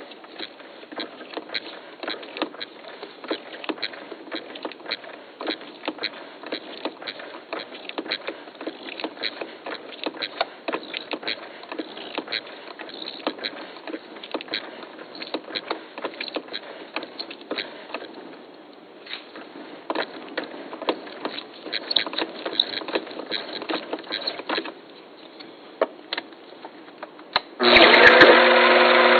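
Deer antler being twisted by hand onto a thread-cutting tap held in a lathe chuck: a steady stream of small crunching clicks as the tap cuts a thread into the antler's bore. About a second and a half before the end, the lathe motor starts and runs with a loud, steady whine.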